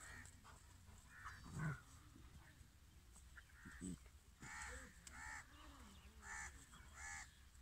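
Two dogs play-fighting: faint low growling, with a louder snarl about a second and a half in. From about four and a half seconds in there is a run of short, harsh calls.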